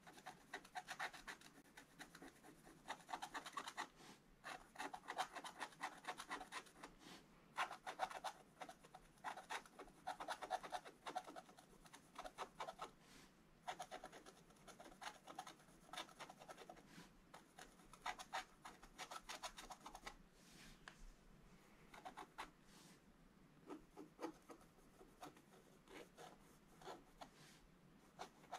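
Faint scratching of a wooden stylus scraping the black coating off a scratch-art card: quick short strokes in bursts of a second or two, with brief pauses between them.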